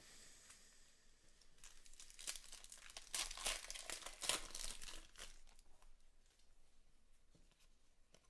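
A baseball card pack wrapper (2019 Panini Stars & Stripes) being torn open and crinkled, loudest from about three to five seconds in, then dying away to faint rustling as the cards come out.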